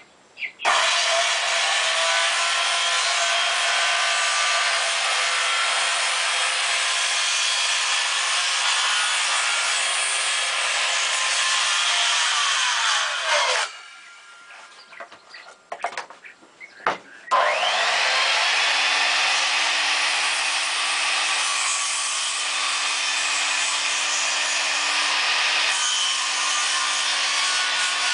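An electric power tool working a wooden trailer-framing piece, trimming it to the marked line. It runs steadily for about twelve seconds, winds down, and after a short pause with a few knocks it starts up again and keeps running.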